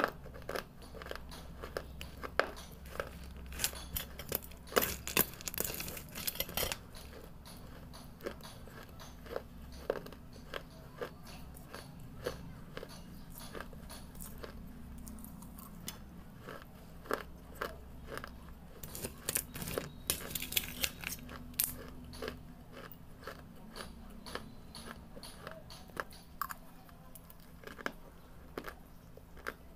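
A person biting and chewing pieces of baked red clay brick: repeated sharp crunches, coming thickest in a couple of bursts of rapid bites, with quieter chewing between.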